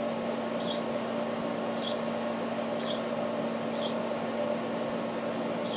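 Steady mechanical room hum with a constant low tone, and over it faint, brief soft scratches about once a second from a fine paintbrush dabbing pastel onto a resin doll's brow.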